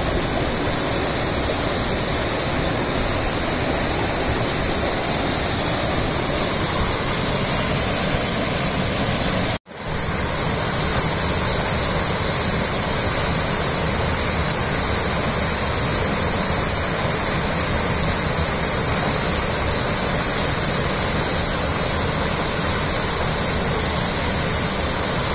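Waterfall rushing down rock, a loud, steady roar of falling water. It breaks off for an instant about ten seconds in, then carries on unchanged.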